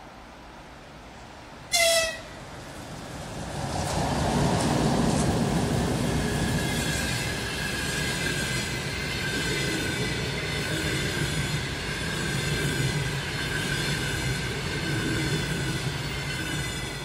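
Two coupled EP20 electric locomotives hauling a passenger train: a short, high horn blast about two seconds in as the train approaches, then the train passes at speed with a building rumble and wheel clatter over the rails. A steady high whine runs under the passing coaches.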